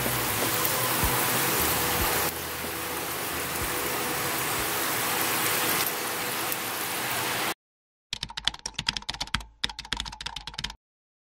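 Hot eggplant with scallion-oil topping sizzling steadily on a plate fresh from the air fryer, with faint crackles, until it cuts off suddenly. Shortly after comes a rapid clatter of computer-keyboard typing clicks, broken by one short pause.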